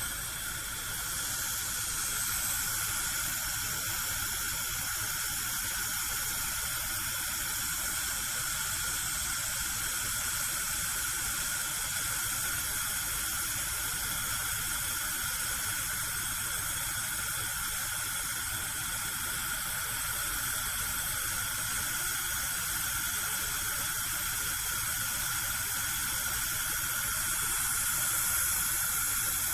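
Gas cooker burner alight, its gas flame giving a steady hiss.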